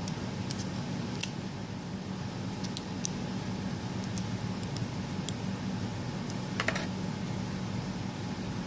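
Scattered light clicks and taps of small repair tools on an iPhone 6's internal parts, with a quick cluster of clicks about two-thirds of the way through, over a steady low hum.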